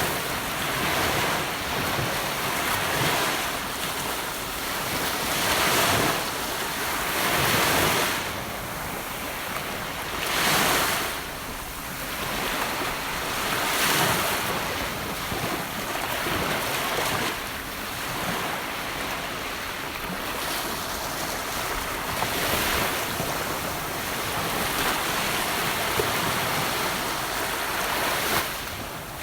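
Gentle ocean waves breaking and washing up a beach, each wave swelling into a hiss of surf every few seconds over a steady background wash.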